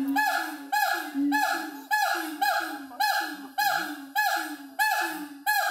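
A gibbon calling: a steady run of loud hoots, about two a second, each rising sharply at its start.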